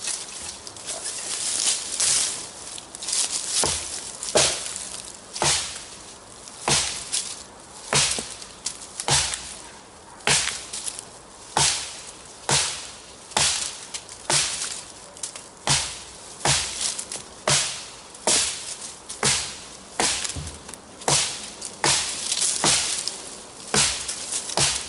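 Thick Camillus Carbon V kukri chopping into a log, steady blows landing about once a second, each a sharp chop.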